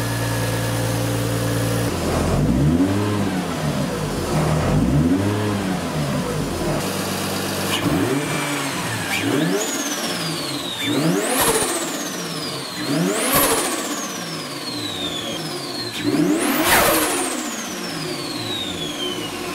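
Turbocharged Toyota 1JZ straight-six idling, then revved repeatedly, the pitch rising and falling with each blip. From about eight seconds in, a high turbo whistle climbs with each rev and dies away slowly as the revs drop, the biggest rev near the end. The engine is being revved to see whether it builds boost.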